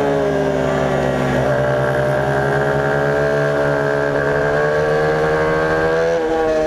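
Small race motorcycle's engine heard from a camera mounted on its tank, pulling hard through a corner. The revs climb slowly, with a brief hitch about a second and a half in, then fall away about six seconds in as the rider rolls off.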